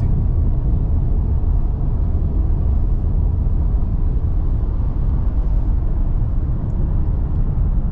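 Steady low road rumble and engine drone of a car cruising at highway speed, heard from inside the cabin.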